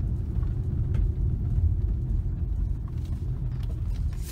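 Low, steady rumble of a car moving slowly, with a few faint ticks.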